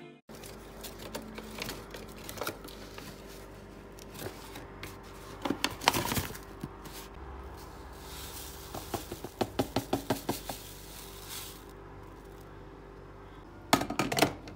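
Desk and kitchen handling sounds with no music: light keyboard typing clicks, then ground coffee poured from a paper bag into a drip coffee maker's filter with a soft hiss and a quick run of taps, and loud clunks of the glass carafe near the end.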